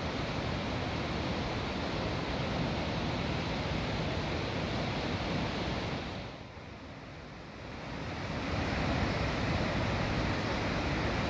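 A river swollen by flooding rushes as whitewater between the stone piers of a bridge, a steady rushing of churning water. It goes briefly quieter a little past halfway, then returns.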